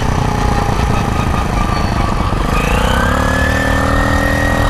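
The 49cc engine of a Motoped motorized bicycle running under way. About two and a half seconds in, its pitch rises as it speeds up, then holds steady over a heavy low rumble.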